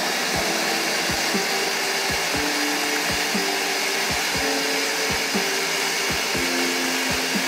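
Countertop blender running steadily in its small jar, puréeing roasted tomatillos and other salsa verde ingredients into a smooth sauce.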